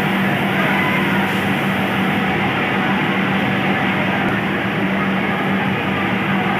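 Steady din of industrial sewing machines running, with a steady low hum.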